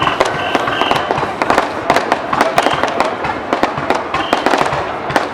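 Aerial fireworks bursting in rapid succession: a dense run of sharp bangs and crackles, several a second.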